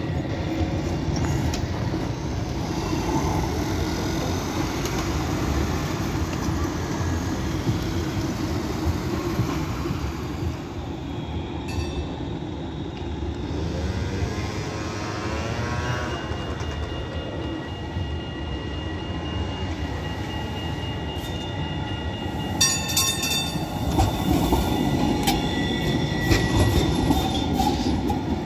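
Alstom Citadis low-floor city trams running on street track with a steady low rumble. Near the end a tram passes close on the curve, louder, with a high steady wheel squeal and some clicking from the rails.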